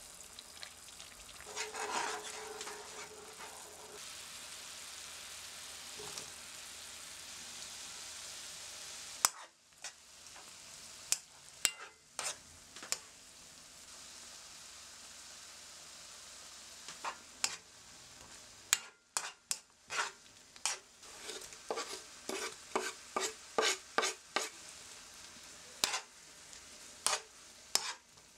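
Soy sauce and mirin poured into a hot nonstick frying pan, sizzling steadily. After a cut, onions and kimchi are stirred in the bubbling sauce, with utensils clicking and scraping against the pan in quick runs of sharp taps over a soft sizzle.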